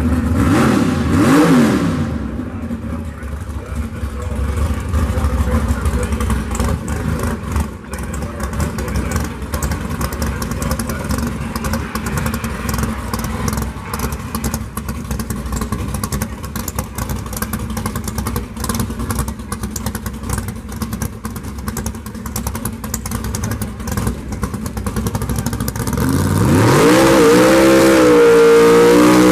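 Drag-race Chevrolet S-10 pickup engine. It is revved once briefly at the start, then idles with an uneven, rumbling beat. Near the end it is revved up and held at high rpm, its pitch wavering.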